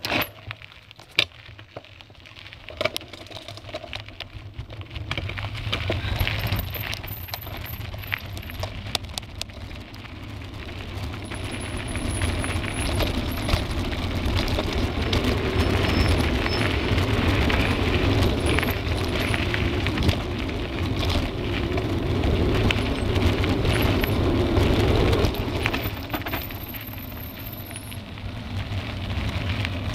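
Mountain bike riding down a gravel and dirt singletrail, heard from a handlebar-mounted camera: wind buffeting the microphone, tyres crunching over the ground, and the bike and camera mount rattling and clicking over bumps. It starts quieter with scattered clicks, grows louder as the speed builds from about five seconds in, and eases for a moment near the end.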